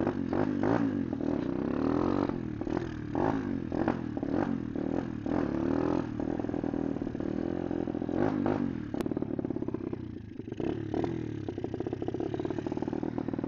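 125 cc pit bike engine revving up and falling back several times as the rider works the throttle and clutch to pop the front wheel up for wheelies.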